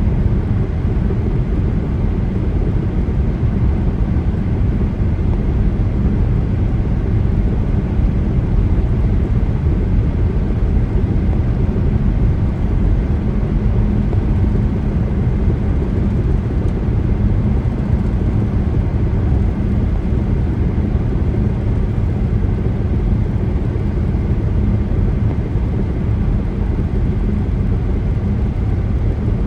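Steady road noise of a car driving on a highway: tyre and engine rumble, even in level throughout, with a faint steady hum.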